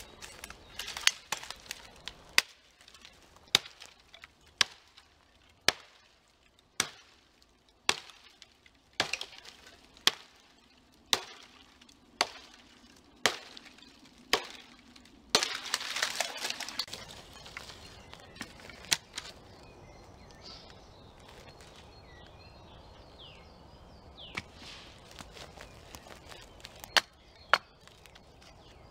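Hatchet chopping into a dead conifer branch, one sharp chop about every second for the first fifteen seconds. Then comes a longer crackling burst. After a quieter stretch, a few more chops come near the end.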